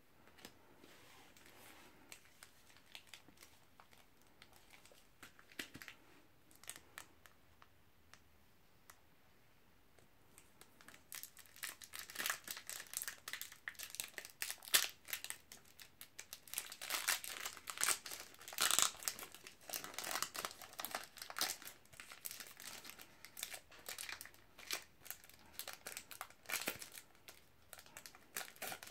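Trading-card booster pack wrapper crinkling and tearing as it is opened and pulled apart by hand, in dense irregular crackles. The first ten seconds are quieter, with only a few faint ticks.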